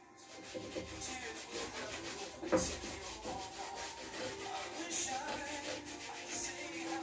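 Repeated scraping and rubbing strokes of a painting tool dragged across a stretched canvas, laying on acrylic paint, with one sharper knock about two and a half seconds in.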